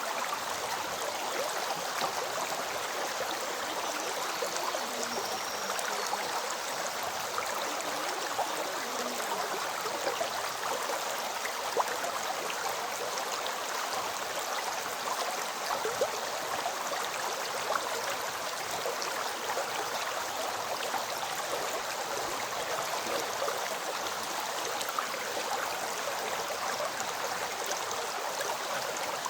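River water flowing steadily, a constant even rushing.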